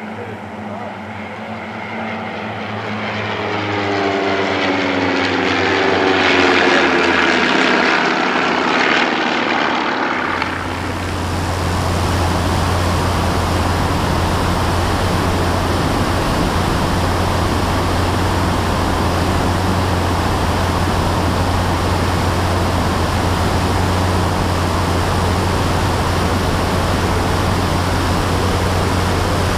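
A formation of single-engine propeller planes passing overhead, their engine tone sliding in pitch as they go by and growing louder. About ten seconds in it cuts to the steady engine and propeller drone with wind rush, heard from a camera mounted on one of the planes in flight.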